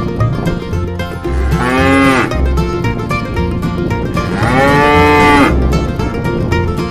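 A cow mooing twice: a short call about one and a half seconds in and a longer one about four seconds in, each rising then falling in pitch. Background music with plucked strings plays throughout.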